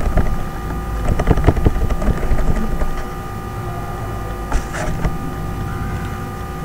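Computer mouse and keyboard clicks, a quick cluster in the first two and a half seconds and a couple more about five seconds in, over a steady low hum and faint whine from the recording setup.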